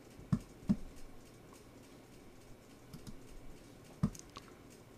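Scattered clicks from a desktop computer's controls as a web page is browsed: two clicks close together just after the start, a softer one near three seconds, and another pair about four seconds in.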